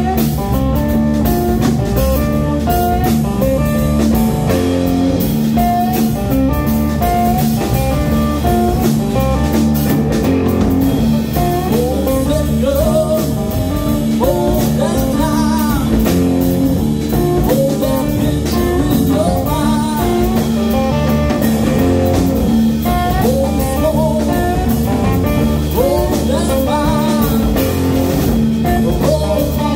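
Live blues-rock band playing: two electric guitars over a drum kit.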